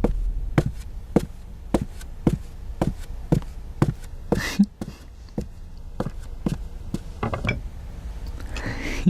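A steady series of sharp taps or knocks, a little under two a second, with two brief hissing swells, one near the middle and one near the end.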